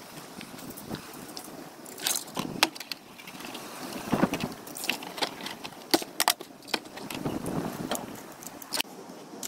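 Handling of a 5-litre plastic water bottle and a plastic bucket-lid base: scattered clicks, taps and crinkles of plastic, with a few sharper knocks.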